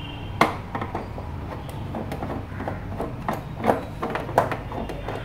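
Scattered sharp clicks and light knocks of a screwdriver and screws on the water heater's outer casing as the casing screws are undone, several in quick succession near the end, over a steady low hum.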